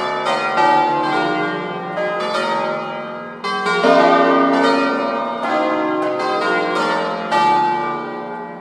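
Peal of eight church bells in B-flat, cast by Mazzola of Valduggia in 1882, swinging full circle on their wheels in a full distesa. Overlapping strokes sound continuously, a fresh strike every half second to a second, each ringing on into the next.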